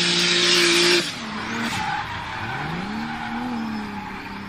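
BMW 3 Series drift car sliding sideways: tyres screeching with the engine held at steady high revs, then about a second in the tyre noise drops and the engine note dips, climbs again and eases off as the throttle is worked through the slide.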